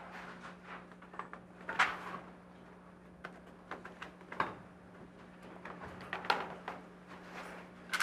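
Handling noises from a photo exhibit board and papers being moved about: scattered short rustles, knocks and clicks, the loudest about two, four and a half, and six seconds in, over a steady low electrical hum.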